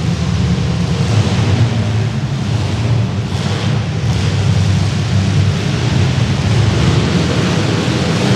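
Engines of several compact demolition derby cars running hard at once: a loud, steady mass of engine noise.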